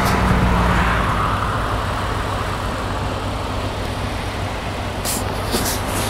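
Road traffic noise: a passing vehicle's low engine drone fades about a second in, leaving a steady rumble of traffic.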